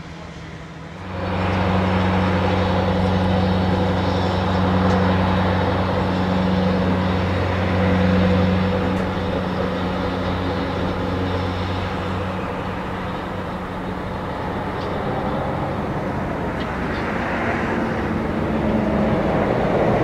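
Sierra Northern diesel locomotive running at low speed as it approaches, its engine a steady low drone that starts abruptly about a second in. The engine note changes about twelve seconds in, and the sound grows louder again near the end as the locomotive draws close.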